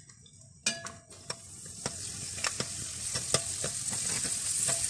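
Raisins and almonds frying in hot oil in a metal pot. The sizzle starts faint and builds to a steady hiss. A spoon stirring them clicks and scrapes against the pot, and there is a sharp knock about half a second in.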